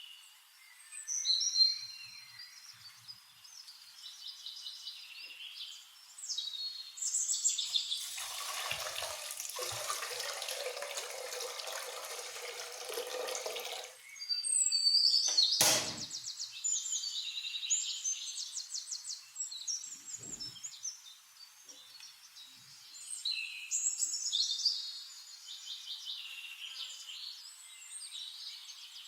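Small birds chirping throughout in repeated short high calls. For about six seconds in the middle, water runs, then a single sharp knock follows.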